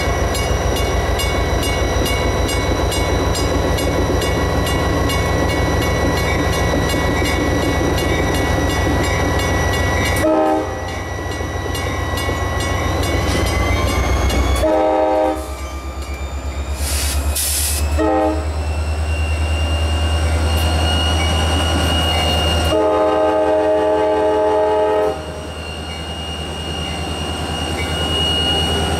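EMD GP40-2 diesel locomotive, its turbocharged 16-cylinder two-stroke prime mover running loud as it comes close. Its multi-chime air horn sounds four blasts, three short and a last one of about two seconds. Under it, loaded freight hopper cars rumble by on the rails.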